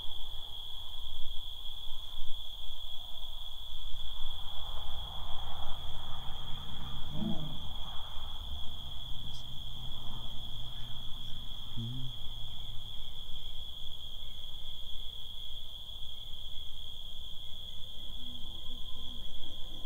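Crickets chirping in a steady, unbroken high-pitched chorus at night, with a faint low rumble underneath.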